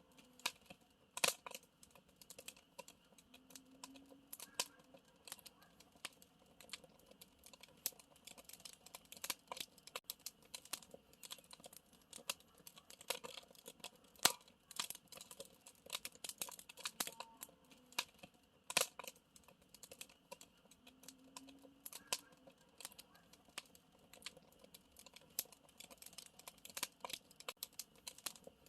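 Wood campfire crackling: a steady run of small irregular snaps and pops, with a few sharper, louder pops scattered through.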